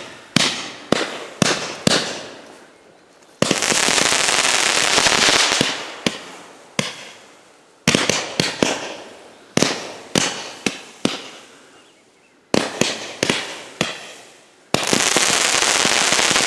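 Consumer firework cake firing: groups of sharp bangs from shots launching and bursting, broken by two dense, continuous rushes of sound lasting a few seconds each, one a few seconds in and one near the end.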